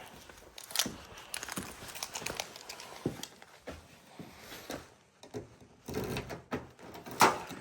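Scattered, irregular clicks and knocks of things being handled around a car whose battery has gone flat, with a louder knock near the end; no engine cranks.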